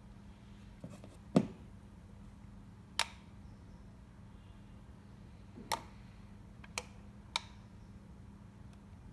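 Buttons on a wireless doorbell unit clicking as they are pressed: five sharp clicks spread over several seconds, the first the loudest, over a low steady hum.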